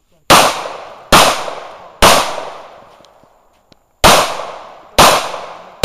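Semi-automatic pistol fired six times in two strings of three, shots about a second apart with a two-second pause between the strings, the last right at the end. Each shot is sharp and trails off in a long echo.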